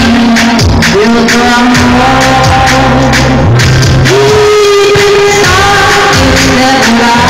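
Live band music with a woman singing over keyboards and a steady drum beat, holding long sung notes; loud throughout.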